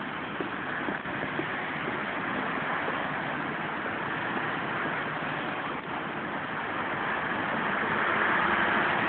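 Steady street traffic noise from cars, buses and trucks on a busy multi-lane road, getting louder near the end.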